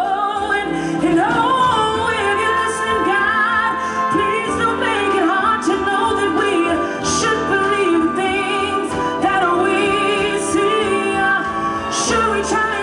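A woman singing solo into a microphone: a slow melody with long held, wavering notes and sliding pitches, with music behind her voice.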